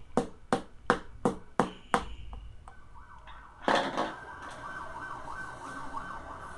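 A screwdriver knocking the press-fit plastic cell caps down into a 12 V lead-acid motorcycle battery: sharp, even taps about three a second, stopping about two seconds in. From about four seconds in, a steady, wavering background sound.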